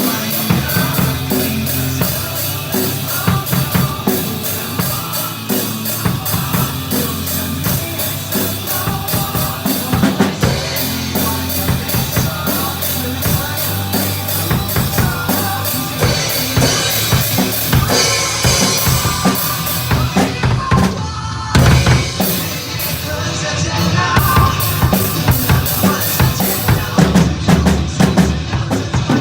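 Drum kit played along to a recorded pop-rock song: steady bass drum and snare hits with cymbals over the band track.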